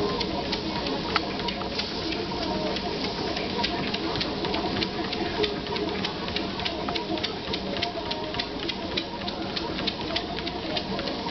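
Motorized treadmill running: a steady motor hum with a regular ticking, about four a second, from the moving belt.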